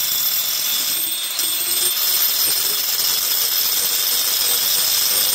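Power grinder grinding steadily into a metal oil filter wrench to clearance it, a loud continuous high-pitched grinding noise.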